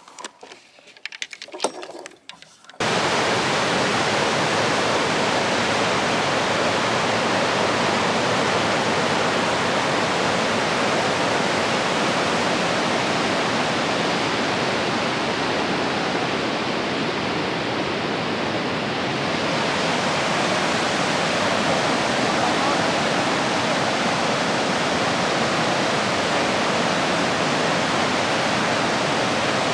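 Steady rush of water pouring through a dam, an even noise that starts abruptly about three seconds in.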